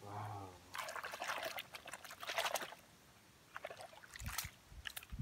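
Muddy water pouring and trickling off a plastic toy car held up out of a puddle. There is a longer spell of running water about a second in and shorter spells near the end, with a few soft low thuds.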